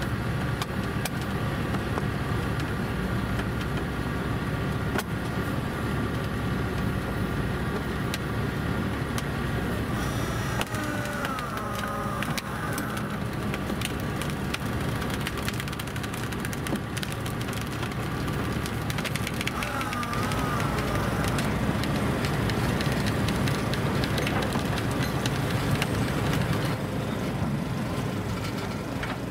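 Diesel engines of heavy machinery (excavators and recovery trucks) running steadily, a dense low rumble. A wavering high whine comes in twice, about a third and two thirds of the way through.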